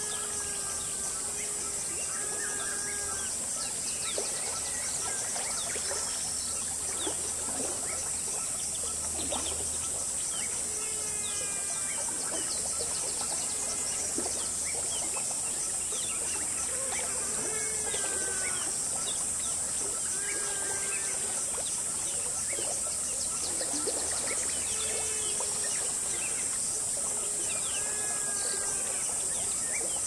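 Jungle ambience: insects keep up a steady high-pitched drone while birds repeat short whistled calls of falling notes every few seconds, over the soft babble of a stream.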